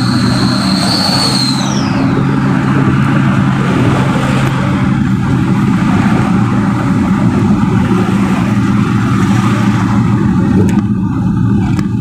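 Truck engine running steadily at cruising speed with road noise, heard from inside the cab. A high tone with overtones fades out about two seconds in, and a few sharp clicks come near the end.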